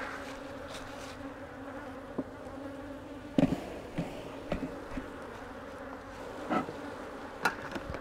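Honey bees buzzing in a steady low hum as a frame crowded with bees is shaken into a nuc box, with a few short knocks, the loudest about three and a half seconds in.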